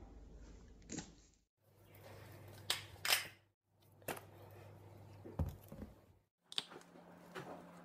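A plastic bottle of Becel liquid margarine being shaken and handled, with a few sharp clicks and knocks as its cap is worked open. The sound cuts out briefly three times.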